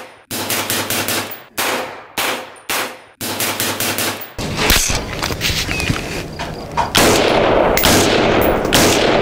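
Suppressed AR rifle firing .223/5.56 in quick succession, about two shots a second, each a sharp crack with a short tail, through a .30-calibre suppressor. About four seconds in, the recording changes: a few louder shots over a steady loud noise.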